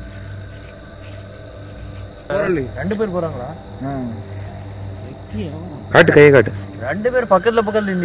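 Steady high insect trilling, cricket-like, over a low hum. About two seconds in, people's voices start calling out with no clear words, loudest around six seconds in.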